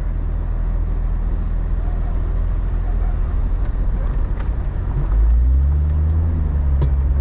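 Jeep engine pulling steadily on a steep dirt climb, its note rising and getting louder about five seconds in as the load comes on, with a few light knocks and rattles from the vehicle.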